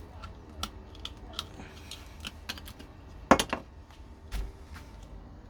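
Irregular small clicks and taps of hand work at a bench, with a sharper knock a little over three seconds in.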